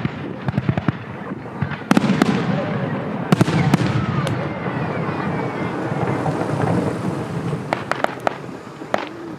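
Fireworks going off: sharp bangs and crackling. A dense stretch of crackle with faint whistles comes about halfway through, thinning to scattered sharp cracks near the end.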